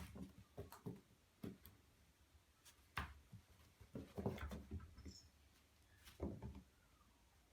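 Newborn puppies stirring: faint scattered bumps and rustling, with a brief high squeak about five seconds in.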